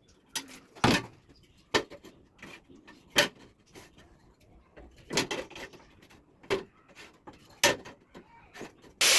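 A dozen or so irregular sharp knocks and clicks of hard objects, then a power tool starts up loudly just before the end.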